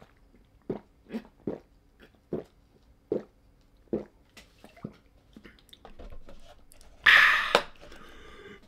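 Gulping swallows of flavoured milk drunk straight from the carton, about eight gulps spread over the first five seconds, then a loud breathy exhale about seven seconds in.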